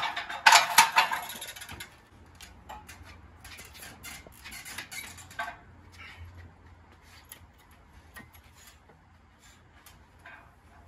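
Metal clinking and clattering of weight plates shifting on a loaded barbell during squats, loudest in the first two seconds, then lighter scattered clicks.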